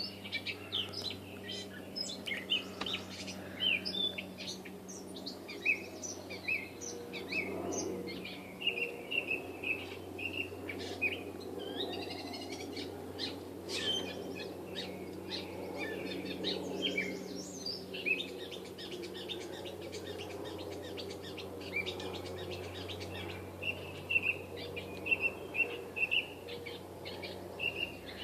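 Gray catbird singing: a long, rambling run of short, varied chirps and notes, one after another with hardly a pause.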